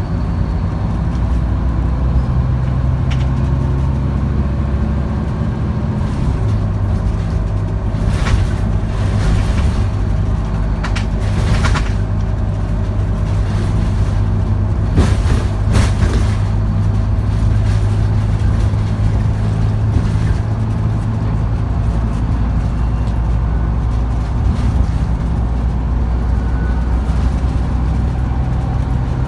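Scania N230UD OmniCity bus's diesel engine heard from inside the passenger saloon, running steadily under way. The engine note steps up and down a few times, and body rattles and clunks come through several times in the middle of the stretch.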